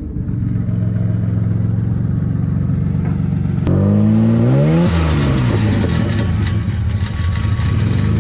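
Car engine idling steadily, then revved once about four seconds in, the pitch rising for about a second and falling back to idle.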